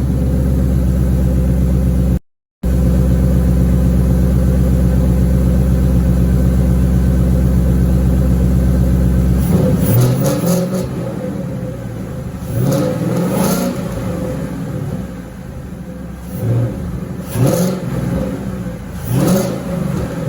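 2015 Mustang GT's 5.0 Coyote V8, breathing through a newly fitted Roush cold air intake, idling steadily. About halfway through it is blipped: several short revs that rise and fall back.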